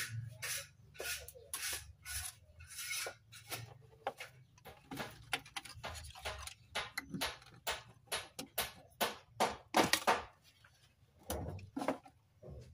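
Irregular clicks, taps and rustling as hands handle the opened LCD TV's circuit boards and cables on a workbench.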